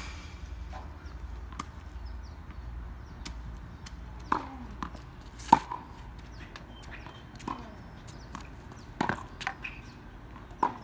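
Tennis balls being struck with rackets and bouncing on a hard court during a rally: sharp pops about a second apart, the loudest about five and a half seconds in, some with a short ringing tail.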